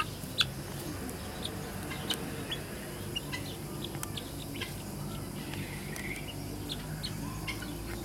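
Birds chirping: many short, high chirps scattered throughout, over a low steady hum.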